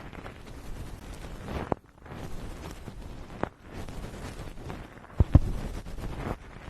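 Rubbing and handling right on an ASMR microphone: a rumbling scrub with brief gaps, broken by sharp knocks about a third of the way in and at the middle, and a louder double knock near the end.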